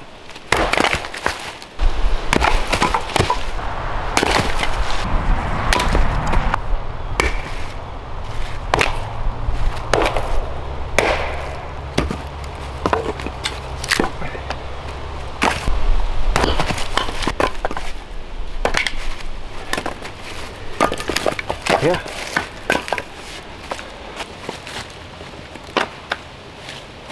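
Firewood being split with an axe: repeated chopping strikes and wood cracking apart, with split pieces clattering onto dry leaves. A low steady rumble runs under the first half.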